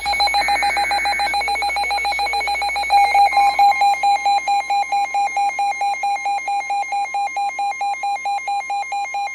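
Emergency Alert System signalling on NOAA Weather Radio ahead of a flash flood warning. It begins with a short burst of screechy two-tone SAME data about half a second in. A fast-pulsing alarm beep runs throughout, and the steady weather-radio warning alarm tone joins it about three seconds in.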